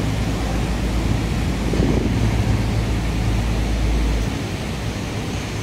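Steady rush and splash of water in a canal lock chamber, with a low steady hum underneath whose deepest part drops away about four seconds in.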